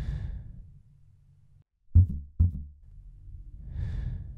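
Tense, heavy breathing at the start and again near the end. About two seconds in come two loud low thumps about half a second apart, like a heartbeat, over a low suspense drone.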